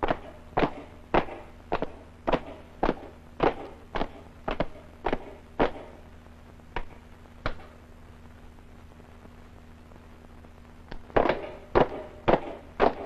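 Soldiers' boots stamping in step while marching, about two steps a second. The steps thin out and stop about seven and a half seconds in, and a quicker run of stamps starts about three seconds later.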